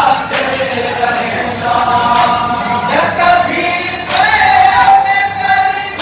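A group of men chanting a Shia nauha (lament) together in Urdu, unaccompanied and amplified through a microphone. A few sharp slaps of hands striking chests (matam) cut through the singing.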